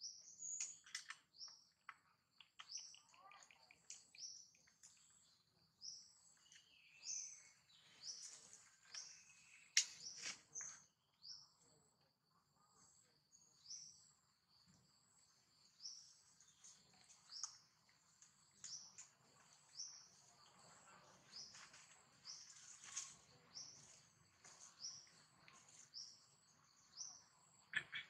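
A bird repeating a short high chirp about once a second, faint, with a few soft clicks and one sharp click about ten seconds in.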